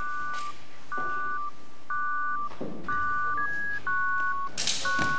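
Electronic background music: a synth figure of two pure tones sounding together, pulsing about once a second and shifting pitch partway through. A short hissing, cymbal-like swell comes near the end.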